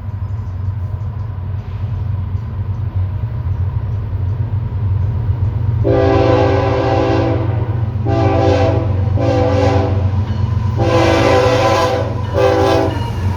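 BNSF freight train's locomotive air horn sounding five loud blasts over the steady rumble of the passing train: a long blast about six seconds in, two shorter ones, another long one and a last short one.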